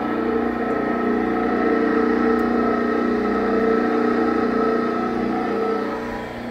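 Baldor 1.5 hp explosion-proof electric motor and gear drive turning the stainless steel screw of a screw processor, giving a steady mechanical hum with a whine. The hum drops in level about six seconds in.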